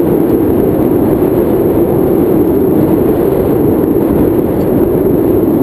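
Loud, steady wind rushing over the camera microphone in paragliding flight, an even low rumble with no breaks.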